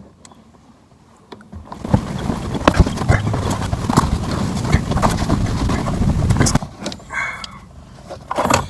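Fabric rustling with many irregular knocks and bumps as a blanket is handled and tucked over a car's rear seatbacks, starting about two seconds in and easing off near the end.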